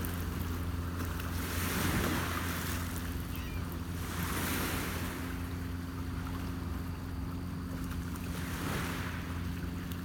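Small lake waves washing against a rocky shore, swelling every few seconds, over a steady low motor hum.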